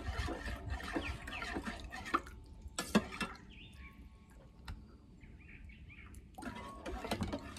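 Metal spoon stirring thinned barbecue sauce in a mug of hot water, with soft scraping clinks and one sharp tap of the spoon about three seconds in, then more scraping near the end.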